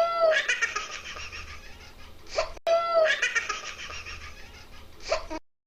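High-pitched laughter: one short laugh clip, about two and a half seconds long, played twice back to back.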